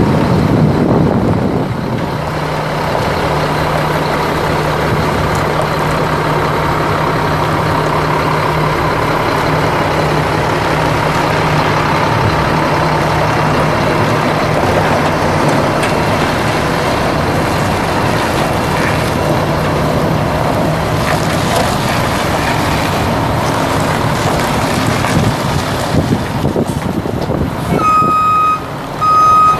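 Mack E7 12.0-litre inline-six turbo diesel of a 1995 Mack RD690S mixer truck running as the truck drives slowly. Near the end a reversing alarm starts beeping in a regular on-off pattern.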